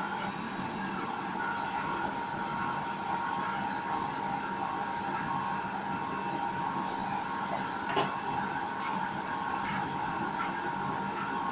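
Namkeen (farsan) making machine running: a steady motor hum with a whine, with one sharp knock about eight seconds in and a few lighter clicks.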